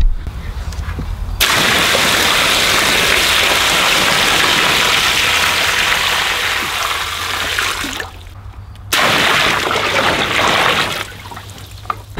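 Rainwater poured from a barrel in a heavy stream into a plastic kiddie pool of water, splashing and gushing. It starts about a second and a half in, breaks off for a moment near the two-thirds mark, pours again for about two seconds, then eases off.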